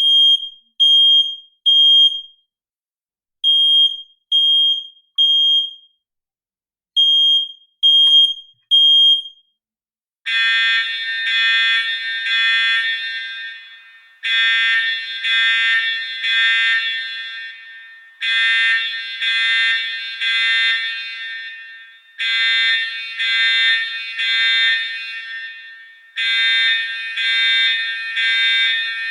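Electronic alarm sound effects. First a high-pitched beep sounding in groups of three, the temporal-three pattern of a smoke or fire alarm. About ten seconds in it gives way to a harsher, fuller alarm tone, also pulsed in threes, with each group repeating about every four seconds and trailing off.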